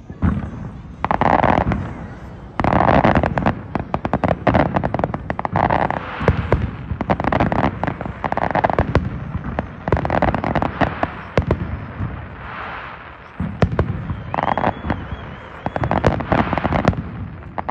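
Fireworks display: volleys of aerial shells bursting in quick succession, a dense run of sharp pops and crackles that overlap, easing briefly about two-thirds of the way through before building again.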